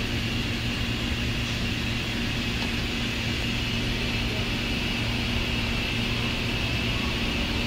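A Shinano Railway 115 series electric train standing at the platform, its onboard equipment giving a steady hum with a constant high whine over it.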